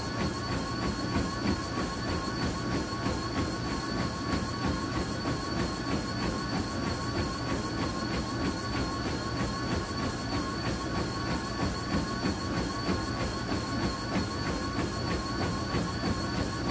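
Treadmill running at 8.5 mph under a runner: the motor's steady whine with footfalls thudding on the belt about three times a second.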